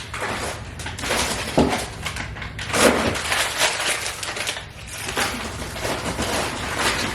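Plastic food packaging and frozen fruit packs crinkling and crunching in irregular bursts as ingredients for an acai bowl are handled and added.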